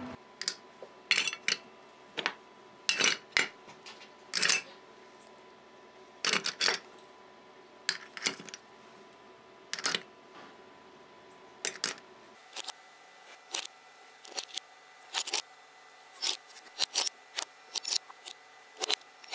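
Small metal machine parts being handled and set down on a table: irregular clinks and taps of metal on metal, coming closer together in the second half.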